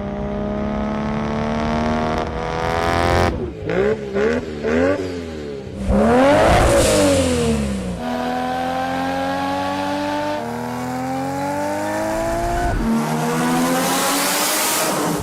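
Turbocharged car engine revving: a run of quick throttle blips, then a hard rev that rises and falls, followed by long pulls with the pitch climbing and dropping back at each break, like upshifts. A hissing rush builds near the end.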